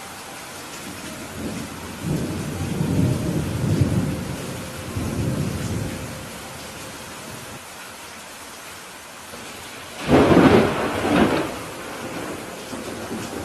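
Steady rain with a low rolling rumble of thunder from about two to six seconds in, then a louder, sharper thunderclap about ten seconds in.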